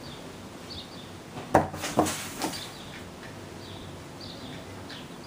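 Three quick thuds and scuffs on a cardboard box, a kitten's paws landing on and scratching at the cardboard, about a second and a half in. Faint bird chirps repeat in the background.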